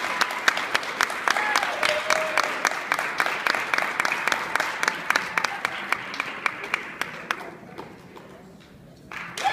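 Audience clapping, many hands at once, with a few voices. The applause thins out and dies away over the last few seconds.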